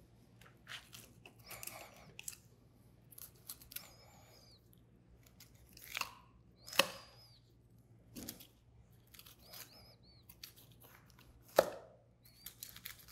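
Knife lifting a fillet off a flatfish's bones: scattered soft scraping and light clicks as the blade runs along the rib bones, with faint short squeaks and two sharper clicks, about seven and eleven and a half seconds in.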